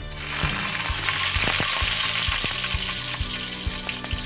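Sliced garlic hitting hot oil in an aluminium wok and sizzling: the sizzle starts suddenly as the garlic goes in, then holds steady.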